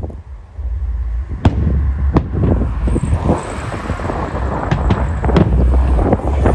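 Firework shells bursting: several sharp bangs at irregular intervals, the loudest about a second and a half in, over a steady low rumble.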